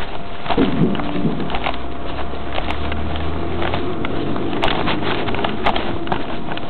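Heil 5000 rear-loader recycling truck running, with scattered sharp knocks and rattles over it. A low engine hum swells for about three seconds near the start.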